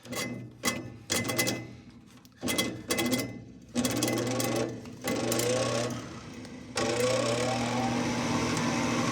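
Furnace draft inducer motor humming and spinning up in short spurts that cut out again, three times, then running steadily from about two-thirds of the way in, after a few clicks at the start. The stop-start running is the sign of a loose terminal on the inducer motor making intermittent contact.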